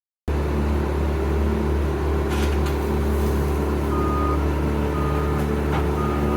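Wood chipper's engine running steadily at a constant pitch, starting abruptly a moment in. From about four seconds in, a reversing alarm beeps three times, about once a second.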